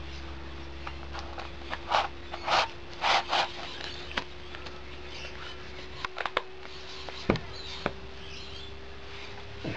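Wipes pulled from a plastic tub: several short rustling swishes about two to three and a half seconds in, then a few light clicks and taps later on.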